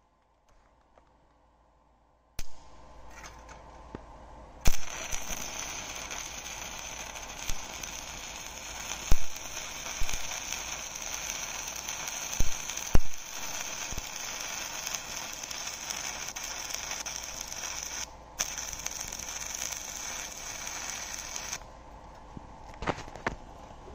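Stick-welding arc from a 1 mm E6313 rod on 1 mm sheet steel: a steady crackling hiss that starts about five seconds in, drops out for a moment once, and stops a couple of seconds before the end, with a few sharp pops along the way.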